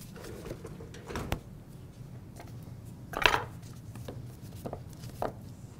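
A few separate knocks and clatters of kitchen work, the loudest about three seconds in, with a knife cutting lettuce on a wooden cutting board in a handful of single strokes rather than a steady chopping rhythm.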